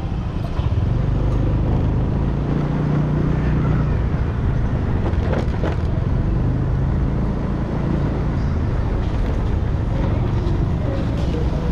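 Motorcycle engine running steadily from the rider's point of view, its note shifting slightly as it speeds up and eases off. Heavy wind noise buffets the action camera's microphone.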